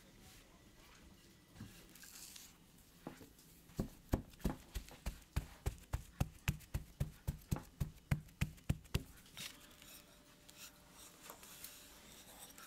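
Hands patting and pressing a ball of dough flat on a floured table: a quick run of soft thumps, about four a second, starting about four seconds in and lasting some five seconds.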